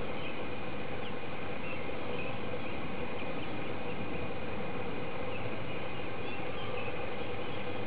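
Steady outdoor background noise with a faint, steady high-pitched hum and scattered faint short chirps.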